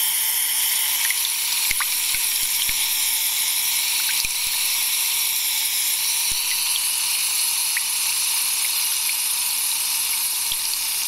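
Foley water splashing made by spraying an aerosol can through its thin nozzle tube into a glass of water: a steady hissing, bubbling rush standing in for a tap running into a sink drain, with a few faint clicks.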